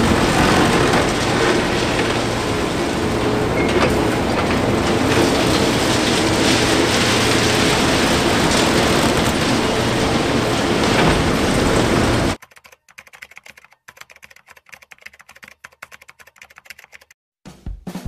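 Hydraulic demolition excavator with concrete-crusher jaws chewing through reinforced concrete: continuous loud crunching and cracking over the machine's steady engine hum. It cuts off abruptly about twelve seconds in, leaving only faint crackle.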